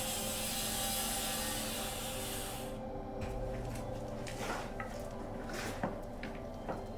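Wood being worked by hand with carpentry tools: a steady scraping for about three seconds that stops abruptly, then shorter scraping strokes and a few light knocks.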